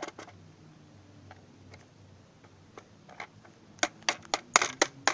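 Plastic case of a drone controller being pried apart by hand: a few faint ticks, then, near the end, a quick run of sharp clicks and cracks as the shell's clips give way.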